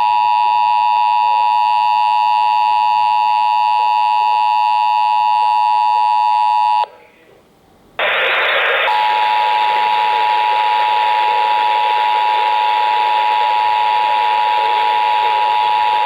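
A weather radio's speaker sounding the Emergency Alert System attention signal, a loud, steady two-tone alert tone, for about seven seconds. It cuts off, and after about a second a hissing noise starts, with a single steady tone through it from about a second later.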